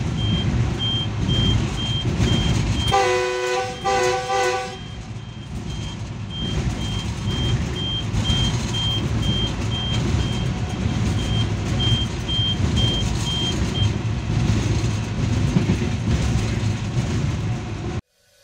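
GE diesel-electric locomotive running at speed, heard from inside the cab: a steady rumble of engine and wheels on the rails, with a high electronic beep repeating about twice a second that stops about three-quarters of the way through. Two short blasts of the locomotive's chime horn sound a few seconds in, and the sound cuts off suddenly just before the end.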